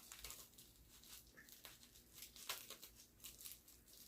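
Faint crinkling and rustling of packaging being unwrapped by hand, in scattered short crackles.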